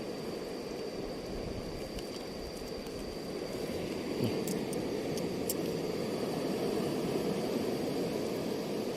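Steady rushing roar of sea surf breaking on the shore, swelling a little about halfway through, with a few faint clicks and a thin steady high whine over it.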